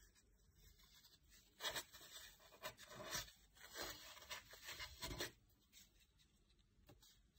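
Faint, irregular rubbing and scuffing sounds, a handful of short ones in the middle of the clip, otherwise near silence.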